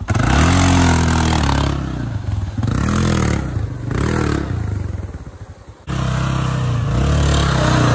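ATV engine revving hard under load, its pitch rising and falling several times as the quad ploughs through a flooded mud track, with water hissing and splashing off the tyres. The engine eases off a little after five seconds, then pulls hard again.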